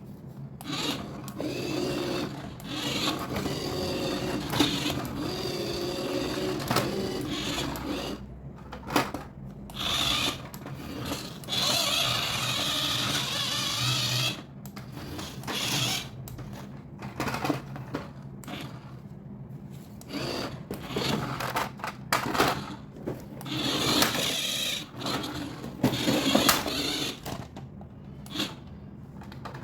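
Small electric motor whirring in runs of a few seconds, with clicks and knocks in between.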